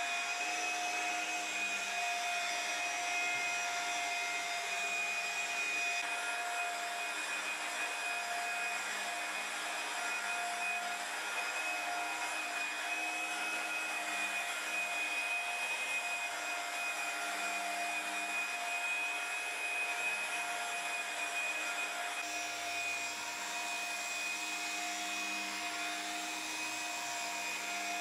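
Electric car polisher running steadily with a high motor whine and hiss as its foam pad buffs the paint.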